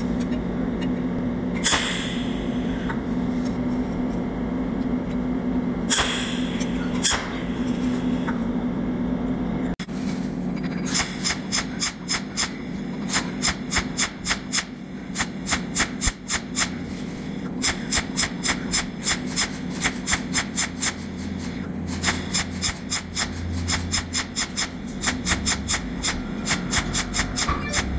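Cold welding machine firing its electrode in rapid pulses: a run of sharp electric snaps, about three to four a second with short pauses, from about eleven seconds in, each pulse fusing a spot of filler wire onto the sheet metal. Before that a steady low hum, broken by a few single snaps.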